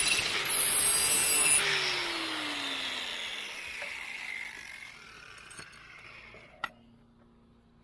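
An angle grinder's abrasive disc grinding the edge of a steel lawn mower blade, switched off about a second and a half in. The motor's whine then falls in pitch as the disc spins down and fades away. One sharp knock comes near the end.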